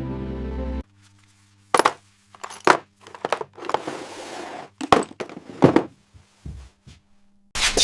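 Background music that cuts off about a second in, followed by irregular sharp knocks and clinks, some with a short ring, spaced unevenly over several seconds. Near the end a louder steady rush of noise comes in.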